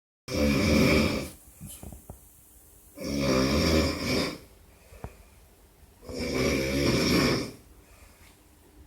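A drunk man snoring loudly: three long, buzzy snores about 3 seconds apart, with quiet breaths between them.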